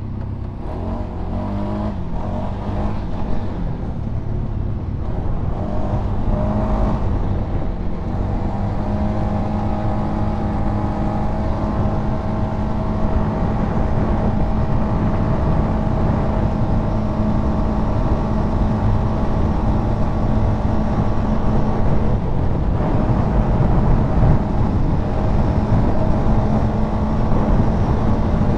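Polaris Sportsman 570 ATV's single-cylinder engine heard from the rider's seat at high revs. It climbs in pitch over the first several seconds, then holds a steady note near 6,500 rpm while the CVT lets road speed keep rising.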